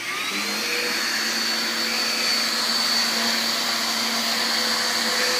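Bissell vacuum cleaner running steadily after being switched on, its motor whine climbing to a high steady pitch within the first half second over a constant rush of suction air.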